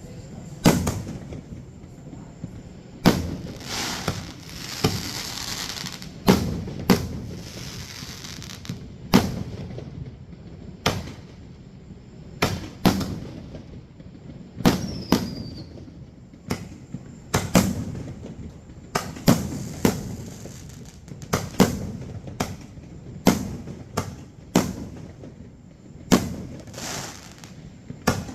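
Fireworks shells firing and bursting in quick succession: a steady run of sharp bangs about every second or two, with crackling between some of them and a brief falling whistle about halfway through.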